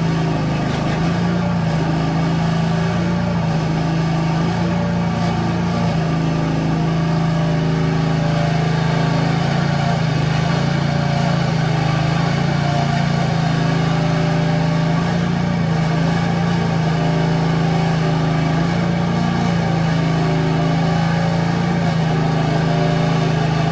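Engine of a one-ton mini excavator running steadily while it digs, its note wavering slightly up and down.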